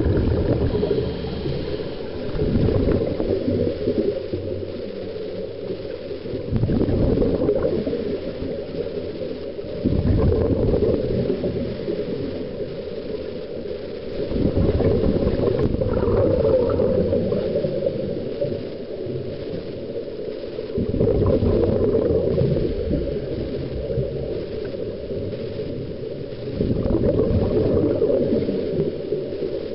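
Scuba regulator underwater: a diver's exhaled bubbles rumbling and crackling in surges every few seconds, in a breathing rhythm, with quieter stretches between.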